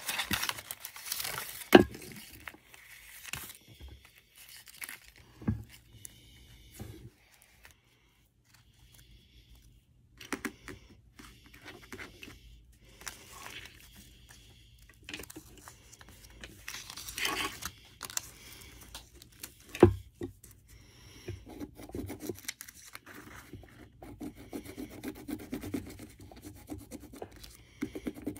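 Notebook paper rustling and tearing as a handmade paper blind bag is unwrapped by hand, in irregular bursts with a couple of sharp taps, about two seconds in and again about twenty seconds in, and a quieter stretch about a third of the way through.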